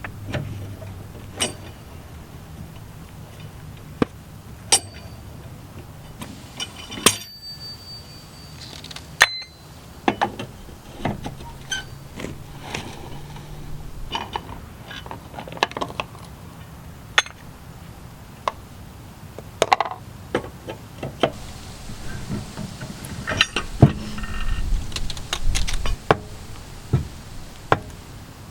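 Scattered sharp metallic clicks, clanks and knocks of hand tools and parts being handled during a front brake job on a van, some briefly ringing, with a busier run of knocks near the end.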